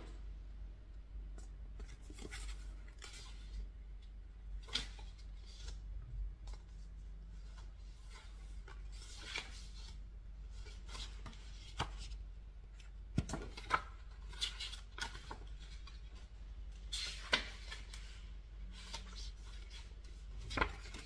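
Pages of a small paper booklet being turned and handled: scattered short rustles and soft clicks a second or few apart, over a low steady hum.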